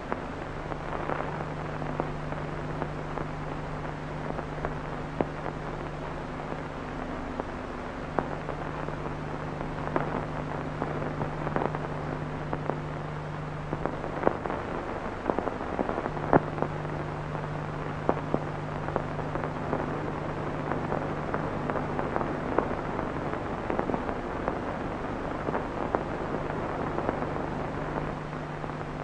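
Crackling old-film soundtrack: a steady crackle with scattered sharp clicks over a low hum, which drops out twice for a second or two.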